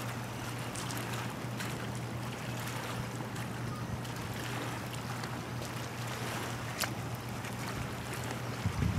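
Light-breeze ambience over open water: a steady low hum under a faint hiss, with a few light ticks. Near the end wind starts buffeting the microphone.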